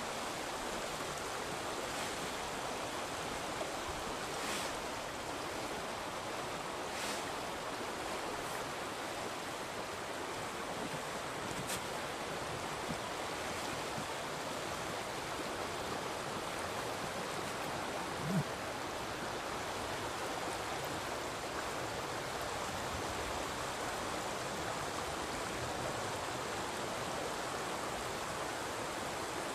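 Mountain stream rushing steadily, an even wash of water noise. A brief low thump stands out about eighteen seconds in, with a few faint clicks earlier.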